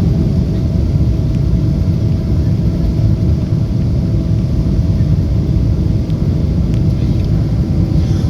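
Airliner cabin noise in flight: a steady low rumble of engines and rushing air, with a faint steady hum above it.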